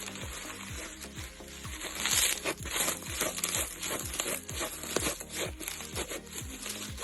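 Slime being squeezed and worked by hand, with a dense crunchy crackling that starts about two seconds in and is loudest just after, over background music with a steady low beat.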